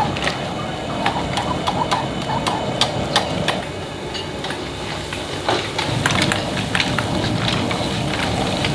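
A metal ladle clanking and scraping against a wok in quick, irregular strikes as a seafood boil is stirred, over the steady rushing noise of a high-flame gas wok burner.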